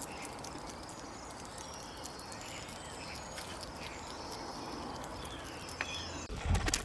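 Steady outdoor background noise with faint, scattered short animal calls and chirps; near the end a rising call and then a run of low thumps begin.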